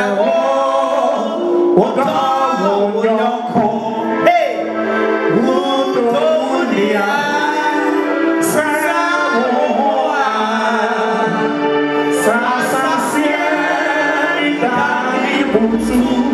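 Live gospel singing by voices amplified through handheld microphones and a PA system. A low bass sound comes in near the end.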